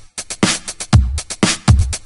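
Electronic music played from Ableton Live with a steady drum-machine beat: deep kick drums falling in pitch, under sharp snare and hi-hat hits.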